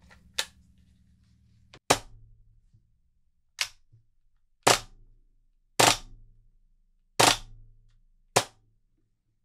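Action Army AAP-01 gas blowback airsoft pistol, fitted with a short-stroke kit, firing single shots on semi-automatic: seven sharp cracks, unevenly spaced about a second apart.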